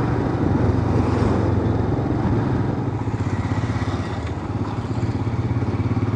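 Motorcycle engine running steadily while riding, a low hum with a fast, even pulsing, over a haze of road noise.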